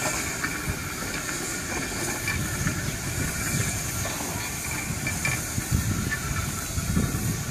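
1877 Avonside L class steam locomotive hissing steam steadily, with a low, uneven rumble underneath that grows from about two seconds in.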